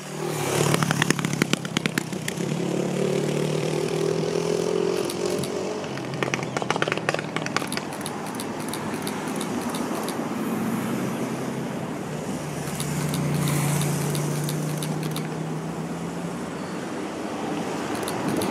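Diesel locomotive engines running as a train passes, a steady engine hum under rolling noise, with clusters of sharp clicks from the wheels over the rail about half a second in and again around six to seven seconds in. The hum grows louder about thirteen seconds in.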